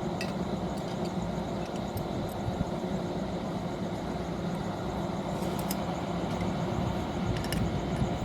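Steady low mechanical hum of running machinery, with a few faint light clicks scattered through it.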